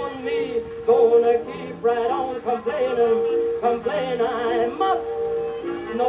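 Music from a 1922 acoustic-era 78 rpm shellac record on the OKeh label, playing on a turntable. Its melody lines waver with vibrato, and the recording has the thin, narrow sound of a pre-electrical disc, with almost nothing in the highs.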